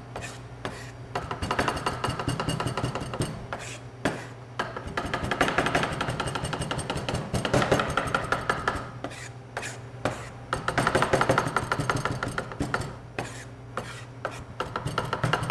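Chef's knife mincing onion on a plastic cutting board: a fast, continuous run of light blade taps and chops as the onion is worked down fine.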